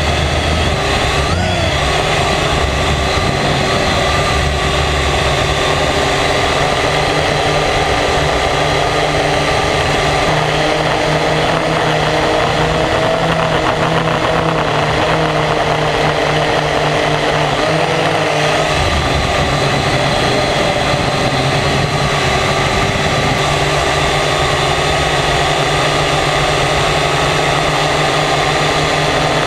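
Quadcopter drone's electric motors and propellers running in flight: a steady whine of several tones that drift slightly up and down in pitch as the drone manoeuvres, over a low rumble.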